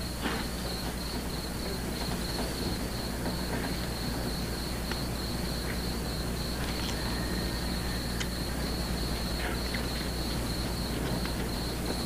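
Crickets chirping steadily in a high, evenly pulsed trill, over a steady low electrical hum and hiss.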